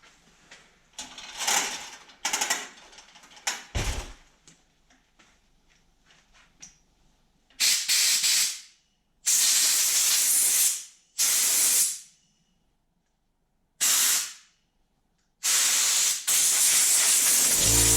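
Spray hissing in five sharp bursts, blown through the jets and passages of a gummed-up Craftsman snowblower carburetor to clear them after soaking in cleaner. Lighter clicks and handling of the parts come before the bursts.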